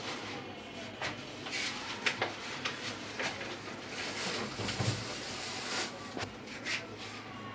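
Faint, scattered light clicks and rustles of a measuring cup being handled while gram flour is scooped, over a low steady background hiss.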